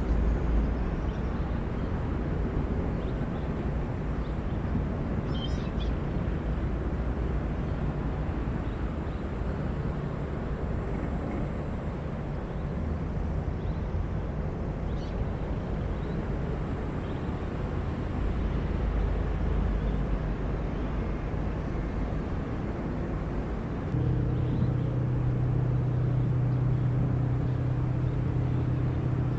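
Diesel engines of construction machinery running steadily. Near the end, a louder, steady engine note joins in.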